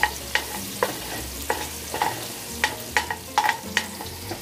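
Metal spoon stirring meat and minced garlic in a stainless steel pot, scraping and clinking against the pot in an irregular run of about two clinks a second. The food sizzles as it sautés.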